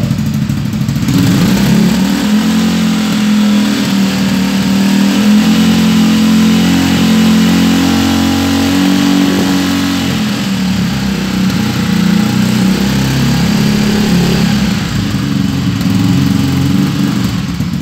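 Motorcycle engine with a Disarsz aftermarket exhaust held at raised revs, about 5,000 rpm, for a noise test. The revs come up about a second in, dip briefly near the middle and are held again. It reads around 85–90 dB on a phone meter, under the 99 dB legal limit.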